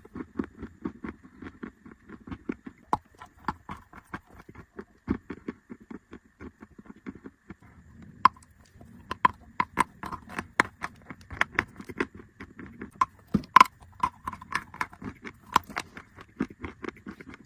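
Close-miked chewing of chalk: a steady run of short, crisp crunches, several a second, growing louder and sharper about halfway through.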